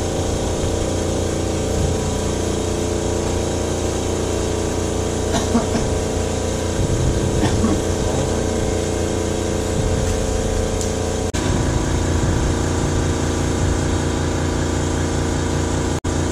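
Air compressor running: a loud, steady motor hum with several held tones, shifting slightly about eleven seconds in and cutting off suddenly near the end.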